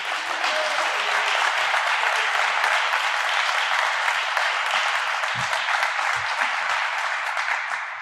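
Audience applauding: a steady patter of many hands clapping that starts right away and begins to die away at the very end.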